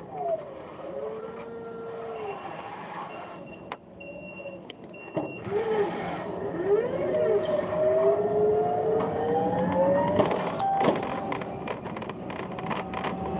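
Electric forklift motor whining, its pitch gliding down and up and then climbing steadily for several seconds in the middle. A sharp clack comes a little after the climb.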